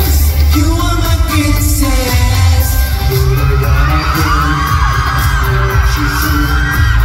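Live pop song over a stage sound system: a male singer on a handheld microphone over a heavy bass line.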